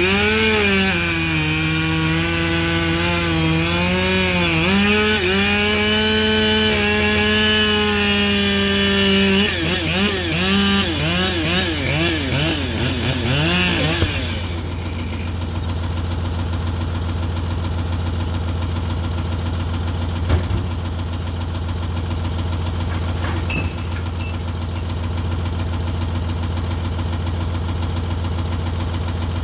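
Two-stroke chainsaw cutting through a log, its pitch sagging and holding under load, then rising and falling quickly before it stops about fourteen seconds in. Under it a skidder's diesel engine idles steadily, with a couple of short knocks later on.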